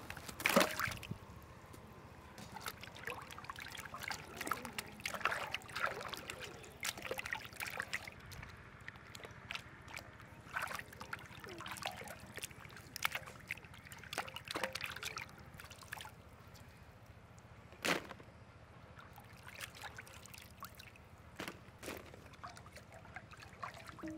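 Hands sloshing and rubbing green beans and carrots in a wide metal basin of water as the vegetables are rinsed, with irregular small splashes and trickles. One sharp tap stands out about three-quarters of the way through.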